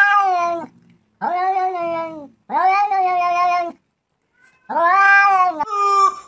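A Siberian husky's long, drawn-out yowling calls, then a cat's long meowing yowls. Five calls of about a second each, at a steady pitch, with short gaps between.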